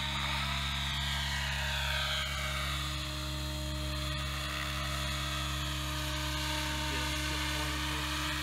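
Align T-Rex 700E electric RC helicopter in flight: the steady whine and buzz of its electric motor, drive gears and spinning rotors. Its higher whine drops in pitch over the first few seconds and then holds steady.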